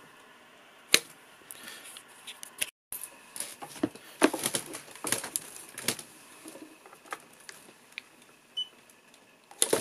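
Scattered clicks and light knocks as a mains charging cable is handled and plugged into the charge port under an electric scooter's deck, with one sharp click about a second in.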